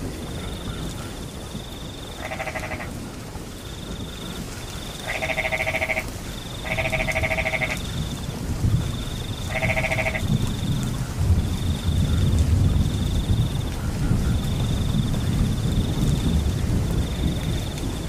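Frogs croaking, four pulsed calls in the first ten seconds or so. Under them, crickets chirp in a steady run of high trills, with a low rushing noise of rain.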